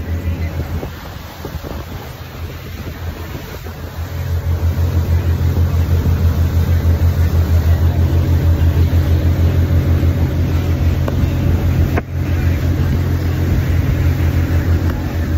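Motorboat engine running under way, a steady low hum with wind rushing over the phone's microphone; it grows louder about four seconds in.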